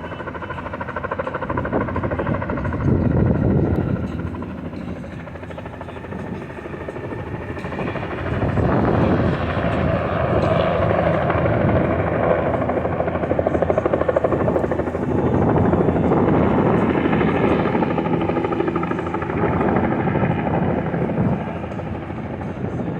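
Helicopter rotor running with a fast, steady blade chop, swelling in loudness a few seconds in, easing, then growing louder again from about eight seconds in.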